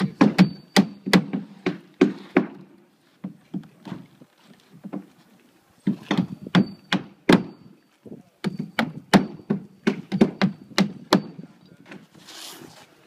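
Roofing hammer driving nails through asphalt shingles into a plywood deck: quick runs of sharp blows, some with a short metallic ring, broken by brief pauses. A short rustle comes near the end.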